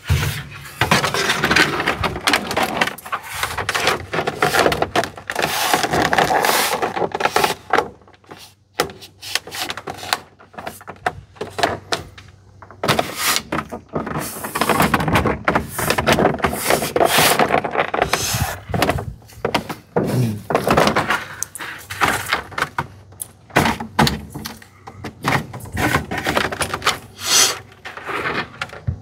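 A rigid plastic dash cap being handled and pressed down over a cracked truck dashboard: irregular scraping, rubbing and knocking of plastic against the old dash, in short strokes with brief pauses.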